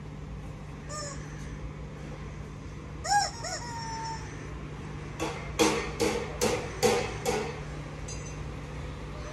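A rooster crowing briefly about three seconds in, then a run of about seven loud repeated chicken calls over a couple of seconds, with a steady low hum underneath.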